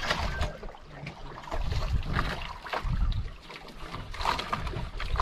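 Wind buffeting the microphone and sea water slapping and splashing against an outrigger boat's hull and floats, in uneven surges.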